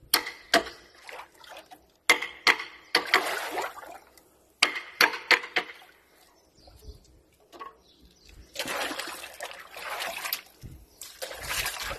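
A kitchen knife works a surgeonfish on a wooden stump chopping block. The blade knocks sharply against the wood several times in quick clusters, then gives two longer stretches of rough scraping in the second half.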